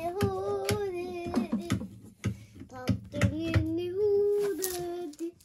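Someone singing long held notes in a high voice, with a few short knocks and taps mixed in.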